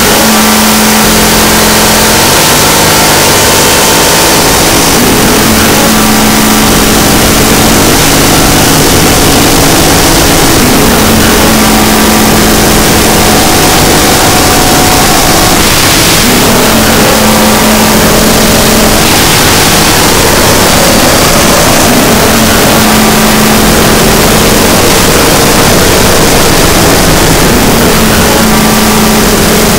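Harsh noise music: a dense, distorted wall of electronic noise at a constant very loud level. A low droning tone slides up and then holds, recurring about every five to six seconds.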